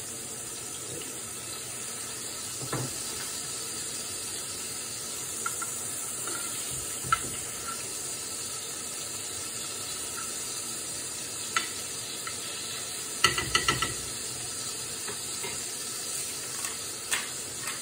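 Meat sizzling steadily in a stainless steel frying pan. A spatula clicks against the pan now and then, with a quick run of clatters a little past the middle.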